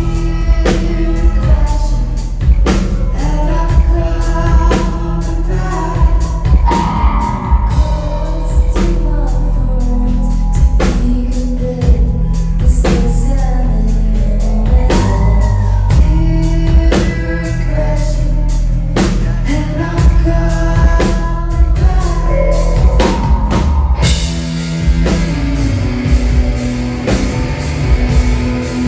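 Live rock band playing, drums, guitars and bass under a woman's sung vocal. Near the end the band comes in heavier and denser, with distorted guitars.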